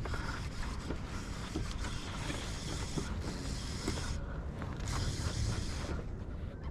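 Wind rumbling on the microphone, with a steady high whirr and creaking from a fishing reel being wound in; the whirr stops briefly about four seconds in and again near the end.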